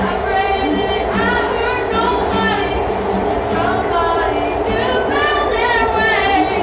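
A woman singing in two phrases to her own strummed acoustic guitar, over the steady low rumble of a subway car.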